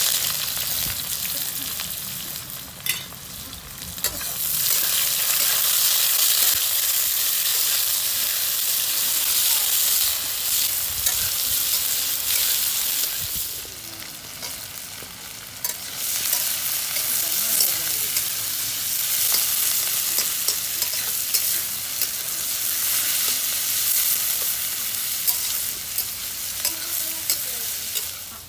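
Sliced onions sizzling in hot oil in a metal kadai while a metal spatula stirs and scrapes them. The sizzle eases off about two seconds in and again around the middle, then comes back up.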